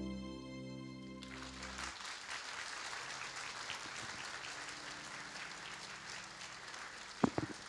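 The last held chord of a song's accompaniment dies away over the first two seconds as a congregation applauds. The applause runs on, and near the end come a couple of sharp knocks.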